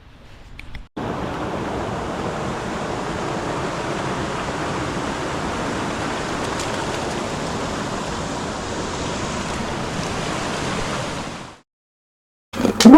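Steady rush of fast-flowing or falling water, starting suddenly about a second in and cutting off suddenly near the end.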